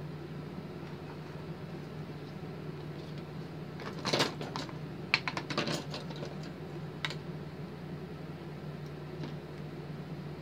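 A few light clicks and taps as craft pieces are handled and set down on a hard work surface. The taps cluster around the middle, with one more a little later, over a steady low hum.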